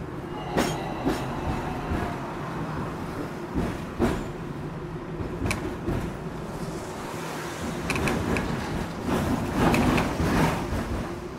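Hong Kong electric double-decker tram running along its street tracks, heard from aboard: a steady low running hum with scattered sharp knocks and rattles from the wheels on the rails, louder and busier about three quarters of the way in.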